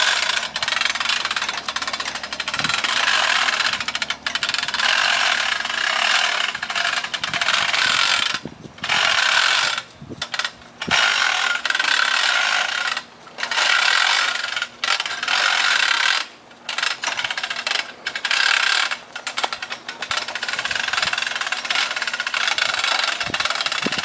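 Scraping and rubbing of metal parts as the uprights of a portable boat lift are fitted and adjusted. It comes in long rasping stretches broken by several short pauses.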